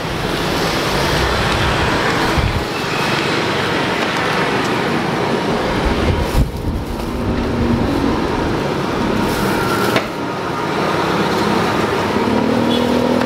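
Loud, continuous roadside traffic noise, with the hum of a passing vehicle's engine heard around the middle and again near the end.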